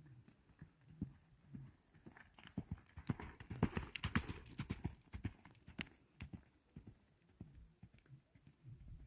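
Hoofbeats of a horse loping on a sand arena, the lope's three-beat rhythm. They grow louder as the horse passes close, about three to five seconds in, then fade as it moves away.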